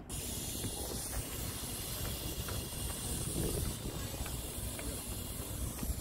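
A steady high hiss that starts and stops abruptly, over a low steady rumble.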